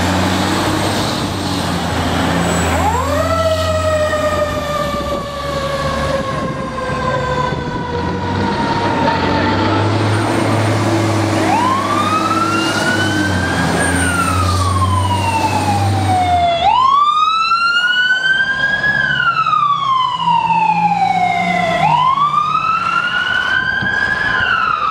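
Fire apparatus pulling out with their engines running, and emergency sirens wailing over them: each wail shoots up in pitch and slides slowly back down. The engine drone fades about two-thirds of the way through, and the wails then repeat about every five seconds, louder.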